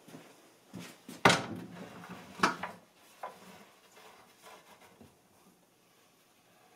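Wooden knocks and bumps as a timber support frame on castors is pushed into place against a plywood and OSB cabinet: a handful of sharp knocks in the first three seconds, the loudest just over a second in, then faint handling.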